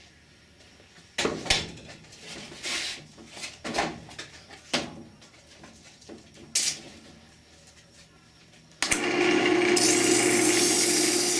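Wood and tools are handled with scattered knocks and rubs. About nine seconds in, a power tool's motor starts and runs steadily with a hum. A second later a hissing rub joins it, like sandpaper held against spinning wood.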